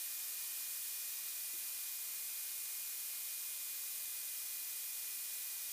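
Steady electronic hiss with a faint, thin high steady tone: the background noise of the aircraft's intercom audio feed between transmissions.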